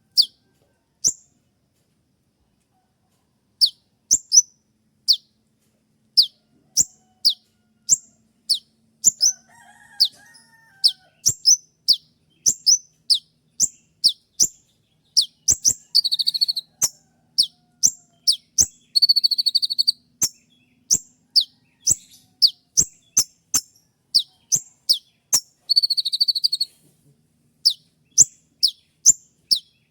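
Konin (kolibri ninja), a sunbird, repeating sharp, high, downward-slurred 'shot' calls, about one or two a second, with a few short buzzy trills breaking in.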